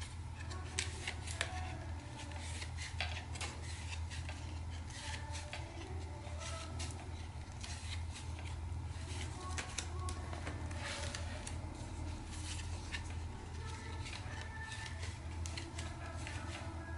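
Pages of a small handmade book of painted watercolor paper being turned and handled: repeated crisp paper rustles and snaps, irregular throughout, over a steady low hum.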